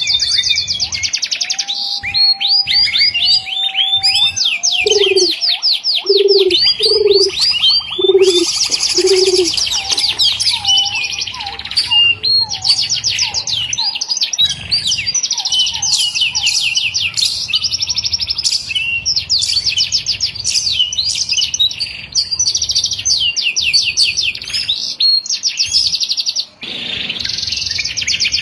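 Birds chirping and singing in fast, unbroken runs of high, quick downward-sweeping notes. From about five to nine seconds in, a second bird adds five low, evenly spaced notes.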